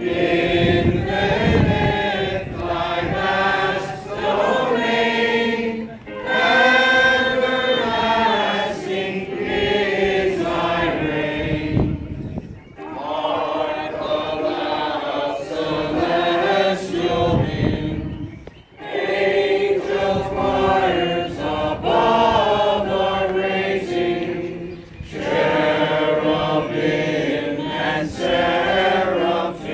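A group of people singing a hymn together in unison, in sung lines of about six seconds each with short breaths between them.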